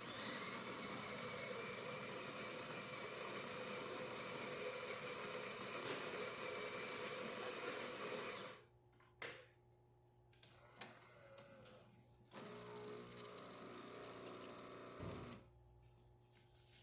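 Jura Z7 super-automatic espresso machine pulling a shot: its built-in burr grinder runs steadily for about eight seconds and stops abruptly, then a few clicks as the brew unit works, and about twelve seconds in the brew pump hums for a few seconds as the shot starts to dispense.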